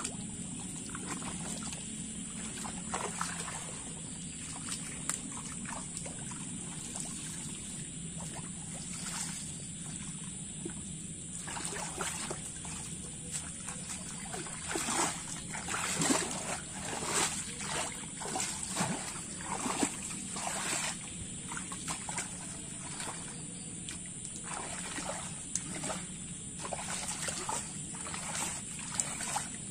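Shallow muddy water splashing and sloshing as hands grope and feet wade through a small running ditch, over a steady trickle of flowing water; the splashing is busiest in the middle stretch.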